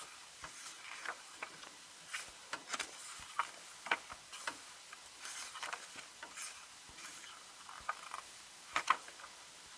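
Faint paper and cardboard handling: scattered light clicks, taps and short rustles as the pages and inserts of a K-pop album digipack are turned and handled.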